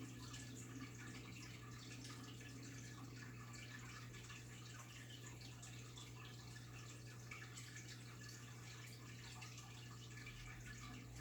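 Aquarium water trickling and bubbling faintly and steadily, with a steady low hum from the tank's pump.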